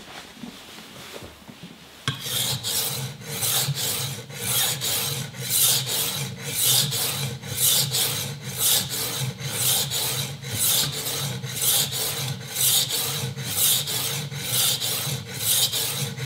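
Kitchen knife blade stroked back and forth on a wetted diamond sharpening plate: a rasping scrape about two strokes a second, starting about two seconds in. The steel is being ground to form an even new bevel on a very dull edge until a burr rises.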